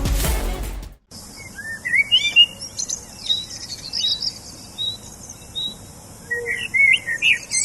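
Background music that cuts off about a second in, followed by small birds chirping and singing in short, quick rising and falling notes over a steady high hiss.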